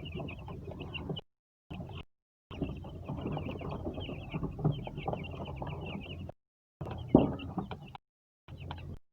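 A flock of Rhode Island Red chickens clucking and chattering continuously, many short calls overlapping. The sound drops out abruptly into dead silence several times.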